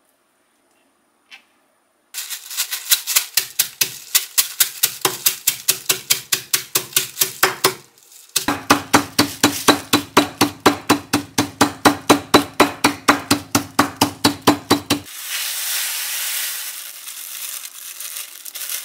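A metal-headed mallet pounding crumbs in a plastic bag on a wooden board, about four blows a second, with a short break about halfway through. Near the end the blows stop and the crumbs rustle as they are poured out of the bag into a ceramic bowl.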